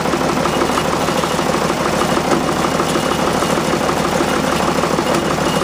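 Loader's engine running steadily at close range, a fast even pulsing that holds the same speed throughout.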